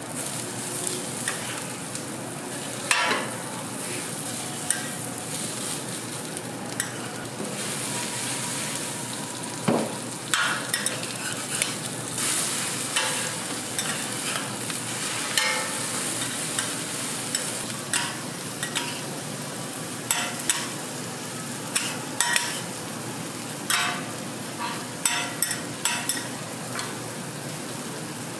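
Sausages and an egg patty with shredded vegetables sizzling on a flat-top griddle, with metal spatulas scraping and tapping the griddle surface many times. A sharp clack about three seconds in, and a quick run of scrapes and taps near the end.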